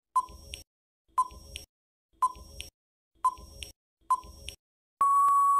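Countdown timer sound effect: five short beeps about a second apart, then one longer, steady beep as the count runs out, marking the end of the time to answer.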